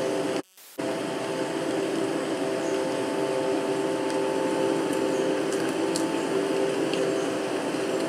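Sound-art recording played back over loudspeakers: a steady noisy drone with several held tones in it, cutting out briefly about half a second in.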